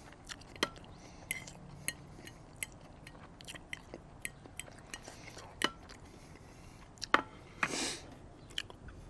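Close-miked eating sounds: quiet chewing with scattered sharp clicks from the mouth and a fork working against a plate, and a short rushing noise about eight seconds in.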